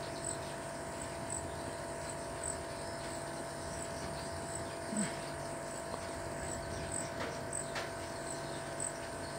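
Motorcycle running steadily at cruising speed, heard as a low, even hum. Faint short high chirps recur about once a second.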